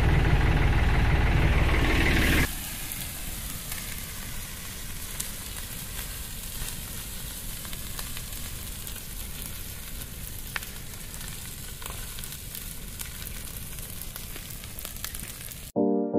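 A Ford tractor engine running for the first couple of seconds, then, after a cut, a burning brush pile with a steady hiss and scattered crackles. Music starts near the end.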